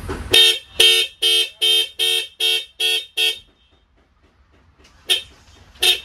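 A pair of Hella electric disc car horns sounding in about eight short, quick blasts, then after a pause two more short blasts near the end.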